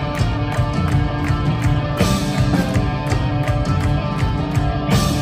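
Heavy rock band playing live: distorted electric guitars, bass guitar and drums driving a steady beat, with cymbal crashes about two seconds in and again near the end.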